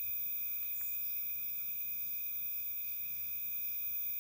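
Steady, high-pitched trilling of insects, likely crickets, with several tones sounding at once and no break.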